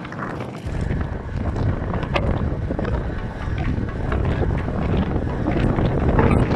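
Wind buffeting the microphone of a handlebar camera on a moving road bike: a heavy low rumble that sets in about half a second in, with scattered light ticks and rattles over it.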